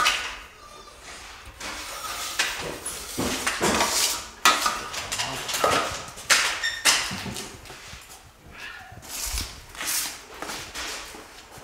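Irregular scrapes, clatters and knocks of drywall finishing tools being handled, starting and stopping every second or so.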